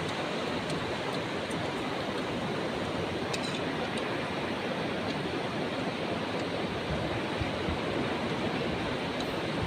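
Steady rushing of sea surf, mixed with wind on the microphone, with a few faint clicks about three and a half seconds in.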